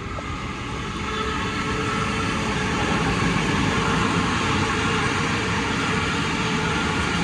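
Sydney Trains Waratah double-deck electric train running past on the far track. The rumble of wheels on rail builds over the first two seconds, then holds steady, with a faint steady whine over it.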